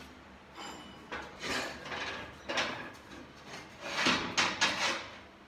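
Steel parts clunking and scraping on a cluttered workbench as a spare splitting head for a log splitter is dug out and picked up. There are several short scrapes, with the loudest run about four seconds in.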